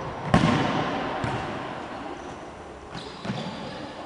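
Futsal ball struck and bouncing on a wooden gym floor: one loud thud about a third of a second in that echoes through the hall, then a few fainter knocks.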